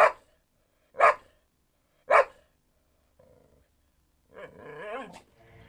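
A dog barking three times, about a second apart, followed by a quieter, wavering sound near the end.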